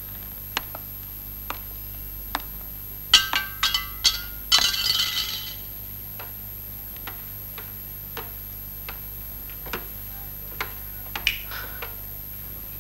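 Light ticks about once a second, with a quick run of ringing clinks about three seconds in and a brief rattling jingle just after.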